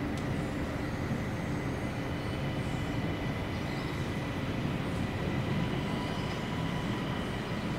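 CP series 3400 electric multiple unit running slowly along the station track: a steady low rumble, with a thin steady high whine above it.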